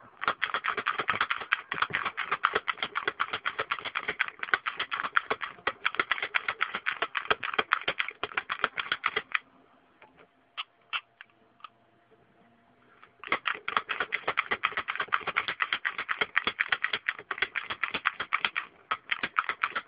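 Manual pick gun (snap gun) being worked in a pin-tumbler lock cylinder, its needle striking the pins over and over: a fast run of sharp clicks. It breaks off for about four seconds near the middle, with only a few single clicks, then starts up again.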